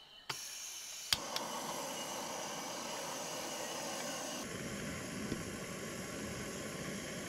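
A sharp click about a second in, typical of a stove's piezo igniter, then the steady hiss of a canister gas stove burner.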